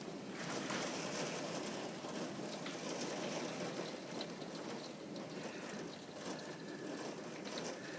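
Steady rain from a thunderstorm falling, with a few scattered drip ticks.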